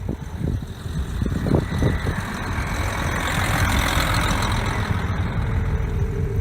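Train running over snow-covered rails: a low rumble with scattered knocks, and a hiss that swells through the middle as the train passes close.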